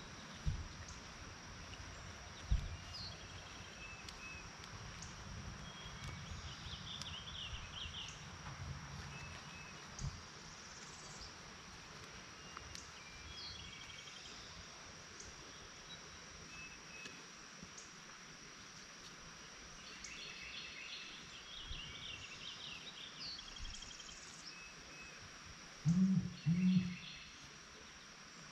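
Outdoor garden ambience: birds chirping on and off over a steady high-pitched insect drone. There are a few low thumps, and near the end two short, louder low sounds.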